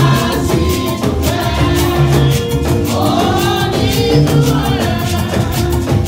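Church praise music: voices singing over a quick, steady percussion beat and a bass line.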